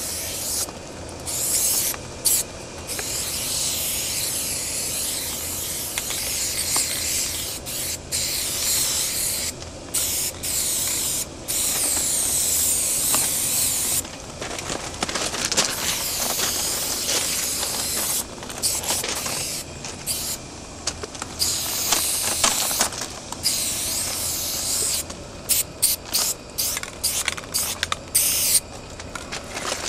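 Aerosol spray paint can hissing as paint goes on, in long strokes of several seconds and many short bursts that stop and start throughout.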